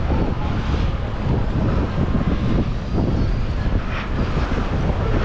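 Steady rumble of riding a moped in traffic: wind buffeting the microphone over road and engine noise, with no clear engine pitch standing out.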